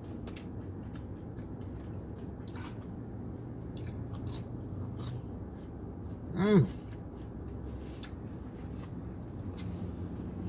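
A person chewing crispy potato wedges: faint, scattered crunches and mouth sounds, with a hummed "mmm" of enjoyment about six seconds in.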